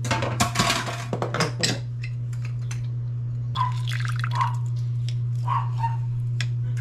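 Half a lime squeezed by hand over a glass bowl of oil marinade: a quick spatter of juice hitting the liquid for the first couple of seconds, then a handful of single drops plinking in, spaced about a second apart.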